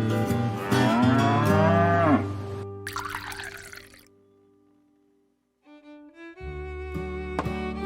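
A cow mooing once, one long call that drops in pitch at its end, over background music. The music fades to near silence about four seconds in and starts again near the end.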